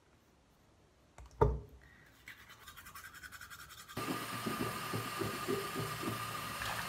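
A thump about a second and a half in, then quick scrubbing strokes of a manual toothbrush brushing teeth. About four seconds in a tap starts running into the basin with a steady hiss and a faint thin whistle, under the continued brushing.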